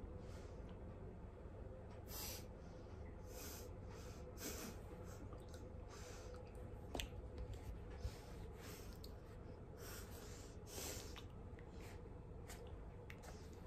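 Faint breaths close to the microphone over quiet room tone, with a couple of soft clicks about seven and eight seconds in.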